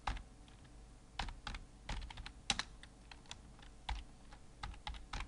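Typing on a computer keyboard: irregular keystrokes, some coming in quick runs.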